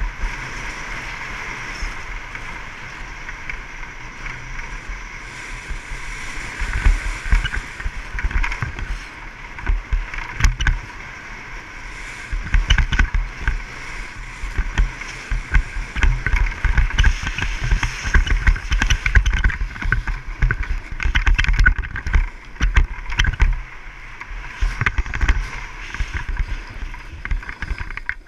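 Wind rushing over a body-mounted action camera's microphone during a fast downhill ski run, with the hiss of edges sliding over packed snow. From about six seconds in, the wind turns gusty, with heavy low buffeting that comes and goes.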